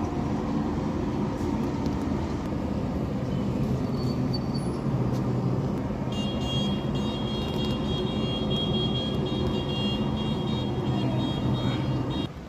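A machine running with a steady low hum, joined about six seconds in by a high, steady whine that stops just before the end.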